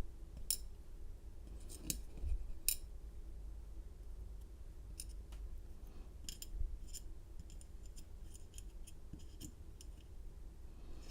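Scattered small metallic clicks and taps, a few sharp ones in the first three seconds and a cluster later: key pins from a Schlage lock plug being handled and set down in a pinning tray.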